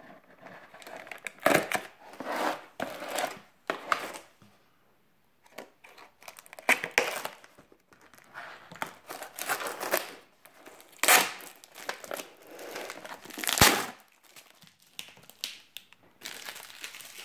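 Scissors cutting packing tape on a cardboard parcel, with tape tearing and the cardboard box rustling and crinkling in irregular bursts.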